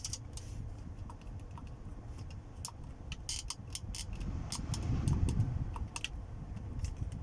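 Irregular clicks of buttons being pressed on a Mercedes W204 climate-control panel as its functions are tried out, over a low rumble that swells about five seconds in.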